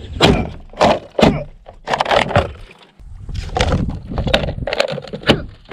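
A fixed-blade knife being hit and worked against a target: a run of about seven sharp, irregular knocks and scrapes, over low rumbling noise in the second half.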